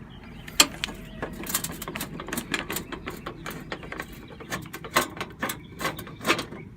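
Irregular metallic clicks and clatter of tools and sheet-metal panel parts as the outdoor AC condenser unit is opened up, its power disconnected so the compressor and fan are off.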